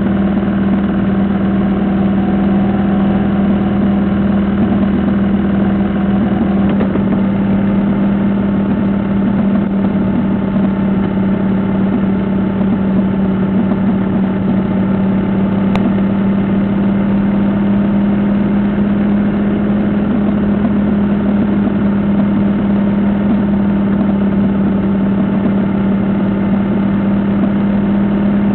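Onboard engine and road noise of a vehicle cruising steadily, with a constant low drone.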